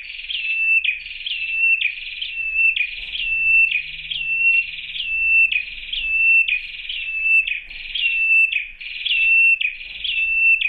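Red-headed prenjak (ciblek kepala merah) calling to a female: a fast, even run of the same high call, about three every two seconds. Each call is a quick downward slide that ends in a short steady whistle.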